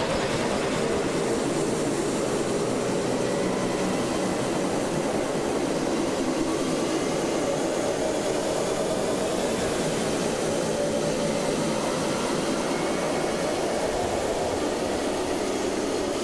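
Electric guitars and bass holding a dense, steady drone of noise with no drum beat, recorded in mono on a portable cassette player.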